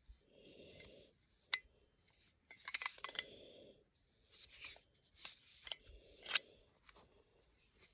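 Small metal clicks and rubbing from a handgun being handled, with about five sharper clicks spread across the stretch.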